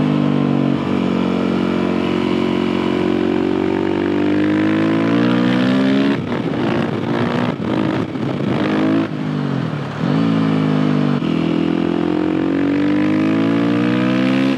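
Suzuki RM-Z 450 single-cylinder four-stroke engine under way on the road, its pitch climbing steadily as it pulls. About six seconds in, the note breaks up and goes ragged for a few seconds. Then the pitch drops and climbs again.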